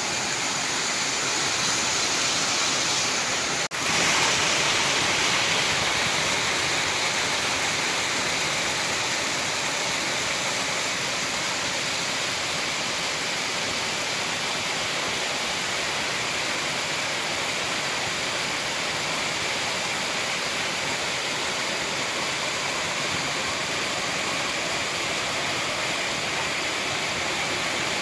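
Water of a small waterfall cascading over rock ledges: a steady, even rushing, with one brief break about four seconds in.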